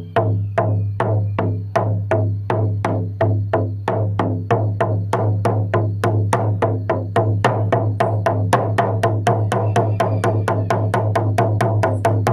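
Drum beaten in a steady pulse, each stroke ringing deep into the next. It starts at about two strokes a second and gradually quickens to about four a second near the end.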